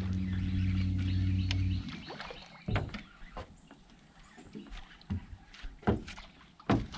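Bow-mounted electric trolling motor humming steadily for about two seconds, then cutting off. Scattered light knocks and clicks follow.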